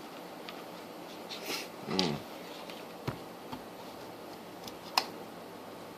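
Scattered light clicks and a knock over a faint steady hiss, with a short falling pitched sound about two seconds in and a sharp click near the end.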